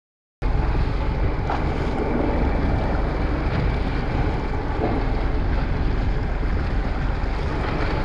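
Wind buffeting the microphone over the wash of the sea and boat noise on a fishing boat. It cuts in suddenly about half a second in, after silence, and then runs steady.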